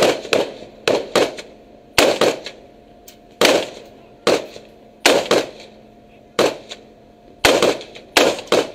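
Rifle fire: about fifteen single shots at irregular intervals, sometimes two in quick succession, each shot sharp and trailing off quickly, over a faint steady hum.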